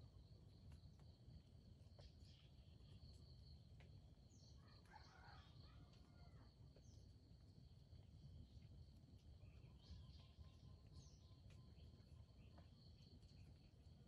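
Faint forest ambience: a steady high insect drone with a few short bird chirps, the most noticeable cluster about five seconds in, over a low rumble.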